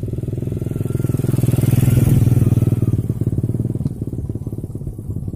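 Motorcycle passing close by, its engine getting louder to a peak about two seconds in, then fading as it rides away along the path.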